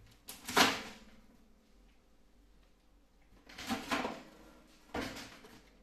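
Twin-tray sealing machine in use: a loud clack-and-hiss about half a second in, then two shorter bursts of the same kind near three and a half and five seconds.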